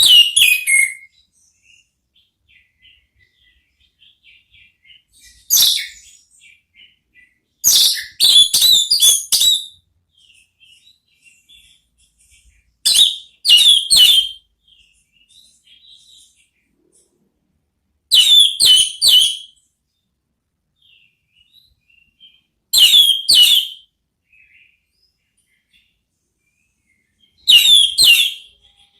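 Orange-headed thrush (anis merah) singing loud, clear 'ngeplong' phrases: short bursts of quick, high falling whistles repeated about every four to five seconds, with faint soft twittering between them.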